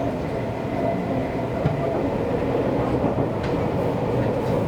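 Seibu Railway commuter train running between stations, heard from inside the car: a steady rumble of wheels on the rails, with a few faint clicks.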